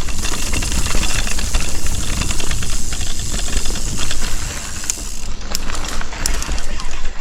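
Mountain bike ridden along overgrown dirt singletrack: a steady loud rushing noise from the tyres, moving air and brush, with frequent clicks and rattles from the bike.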